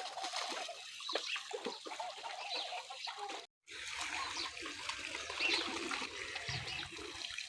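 Domestic ducks calling over water running and splashing into their pool. The sound cuts out for a moment near the middle.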